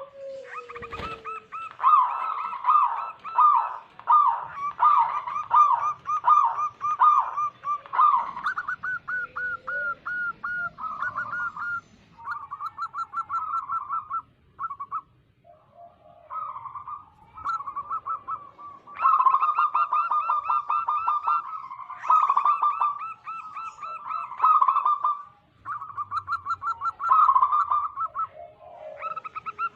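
Zebra doves (perkutut) cooing in long runs of rapid, trilling notes, several birds overlapping, with a short lull about halfway through.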